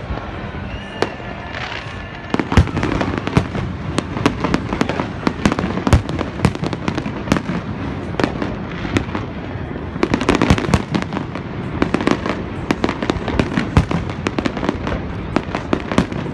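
Fireworks display: many rapid, overlapping bangs and crackles. They grow denser about two seconds in, with a thick flurry around ten seconds.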